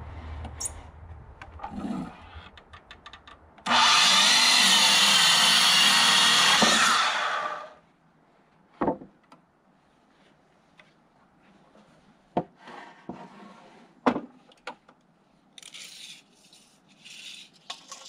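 Miter saw motor spinning up and cutting through a brown pressure-treated 2x6 board for about four seconds, then winding down. A few sharp knocks and light scrapes of boards and tools being handled follow.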